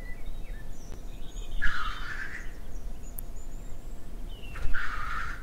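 A male black grouse at its lek chuffing twice, a loud hissing sneeze about a second in and again near the end, with faint chirps of small birds between.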